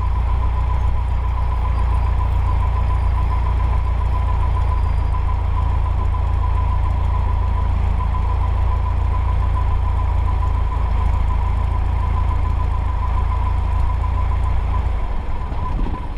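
Cessna 150's four-cylinder Continental O-200 engine running steadily, a deep drone with a thin steady high tone above it. About a second before the end the low rumble drops away.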